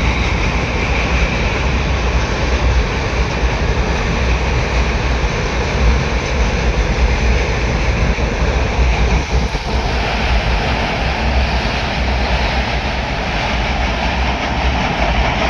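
Passenger train running across a river bridge: a steady rumble of wheels and coaches, its character shifting about two-thirds of the way through.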